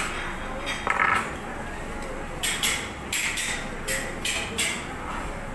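Tableware clinking: a quick run of about seven sharp clinks in the second half, over a steady background din.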